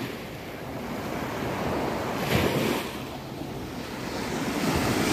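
Small waves washing up onto a sandy shore, one swelling and breaking more loudly about halfway through, with wind buffeting the microphone.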